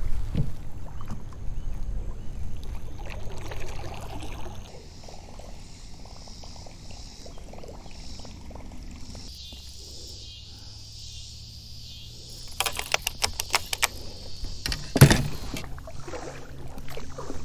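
Kayak being paddled: water splashing and pouring off the paddle blades as they dip. About three-quarters of the way through comes a quick run of clicks, then a single loud thump.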